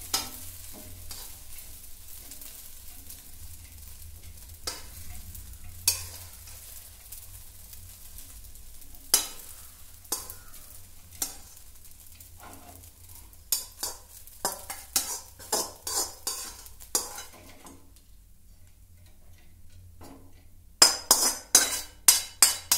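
A metal utensil scraping and clinking against a steel kadhai and plate as cooked sabudana khichdi is spooned out: scattered clinks and scrapes, then a quick run of sharp taps near the end.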